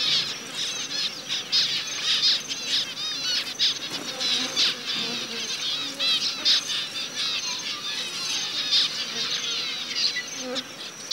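A flock of zebra finches calling: many short, high-pitched chirps overlapping without pause.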